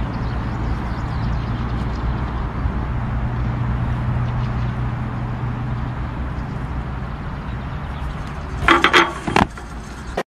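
Steady rumbling outdoor background noise, then a few loud short sounds about nine seconds in, around the time a person falls from a pull-up bar to the ground.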